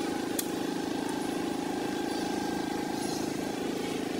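Steady drone of an engine running, unchanging throughout, with a single faint click about half a second in.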